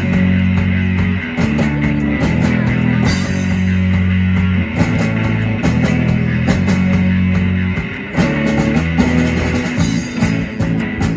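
Live rock band playing two electric guitars, a bass guitar and a drum kit, amplified through stage speakers. The sound is long held low chords broken by short gaps every second or two.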